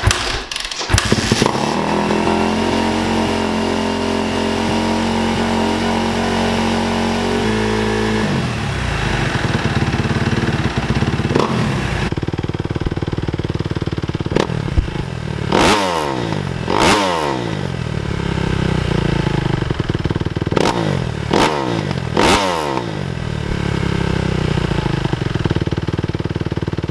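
2014 Kawasaki KX250F's single-cylinder four-stroke engine, on its stock exhaust, is kick-started from cold. It catches about a second in and idles steadily. Later it idles and is revved in about five short throttle blips, each rising sharply and falling back to idle.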